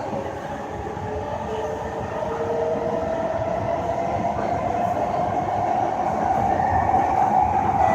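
Inside an SMRT C151 metro train car running through the tunnel: a steady rumble of the train with a drawn-out whine that rises slightly in pitch and grows louder toward the end.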